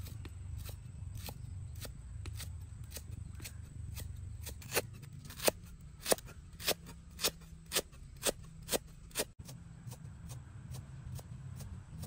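Cleaver slicing lemongrass stalks on a round wooden chopping block: steady chops about two a second, louder through the middle and stopping suddenly about three-quarters through. A steady low rumble lies underneath.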